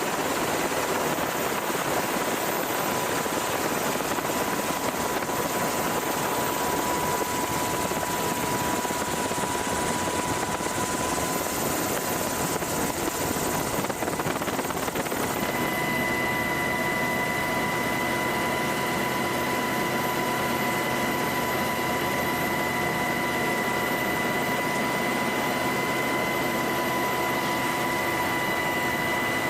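MH-60 Seahawk helicopter running, a steady rush of rotor and turbine noise. About halfway through, a high steady whine joins in.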